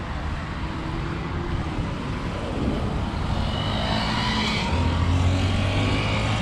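Road traffic on a city avenue: cars and motorcycles passing, with a steady low engine hum that grows louder in the second half as a vehicle goes by.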